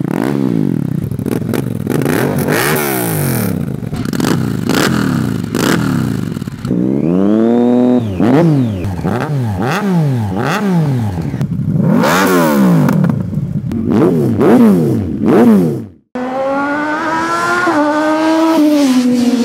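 Motorcycle engines with aftermarket LeoVince slip-on exhausts being blipped at standstill, one bike cut after another: quick repeated revs, each rising and falling sharply in pitch. After a brief cut about 16 seconds in, a held engine note rises a little and then drops in pitch near the end.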